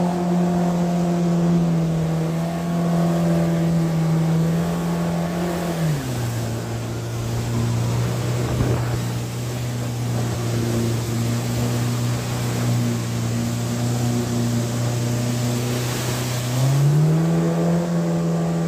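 Mercury outboard jet motor running under way. About six seconds in it eases off to a lower, steady speed, and it speeds up again near the end, over the rush of water.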